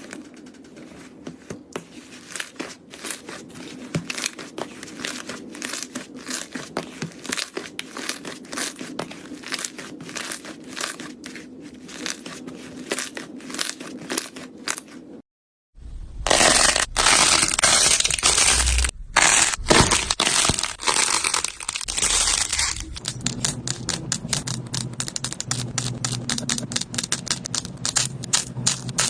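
Slime being squeezed and worked by hand, giving many small, irregular crackling pops. After a brief break about halfway, the crackling comes back louder and denser.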